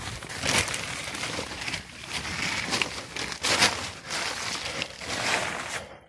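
Plastic tarpaulin rustling and crinkling close to the microphone, in uneven swells, loudest a little past halfway.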